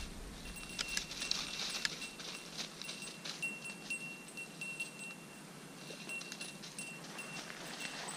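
Small bell on a hunting dog's collar ringing faintly and unevenly as the dog moves, with a few faint clicks and rustles of brush underfoot.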